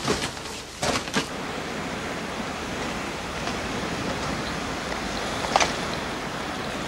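A few scuffs and knocks in the first second, then a steady rushing outdoor wind noise, with one sharp knock a little after five seconds in.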